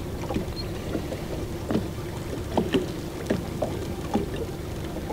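Small waves lapping and slapping against a fishing boat's hull in short, irregular splashes, over a steady low hum.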